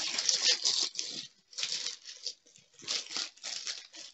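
A thin plastic cover sheet crinkling and rustling as it is handled and smoothed over a sticky diamond painting canvas, in three rough bursts.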